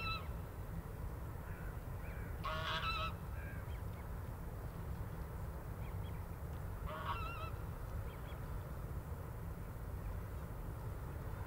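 A goose honking in short wavering calls, about two and a half seconds in and again about seven seconds in, over a steady low background rumble.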